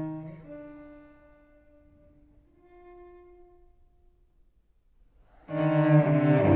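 Solo cello: a held note dies away, a soft, higher note sounds and fades, and after a brief pause the cello comes back in suddenly and loud with low notes about five and a half seconds in.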